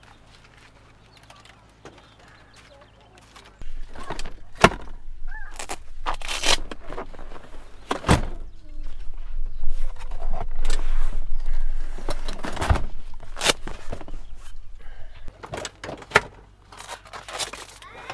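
Gear and bags being handled in a Toyota Sienna minivan's cargo area and its rear seats being folded flat. Starting about three and a half seconds in, there is rustling and scraping with several loud clunks and knocks from the seats and latches.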